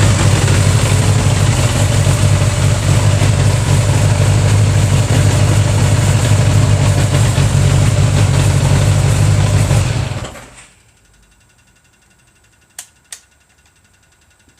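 1981 Honda GL1100 Gold Wing's flat-four engine idling steadily, then shut off about ten seconds in, running down within half a second. Two sharp clicks follow shortly after, about a third of a second apart.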